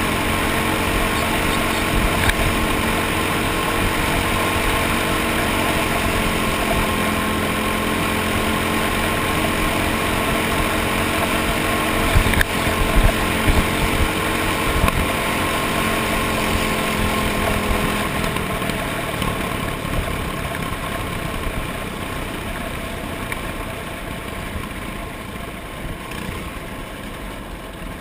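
Racing kart engine running under way, heard from the onboard camera over rushing wind noise, with a few knocks about halfway through. Its steady engine note drops out about two-thirds of the way in, and the sound then grows gradually quieter.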